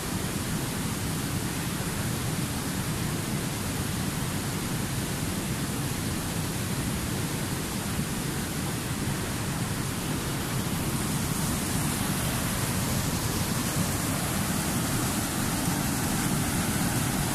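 Fast-flowing river rapids rushing steadily over rocks.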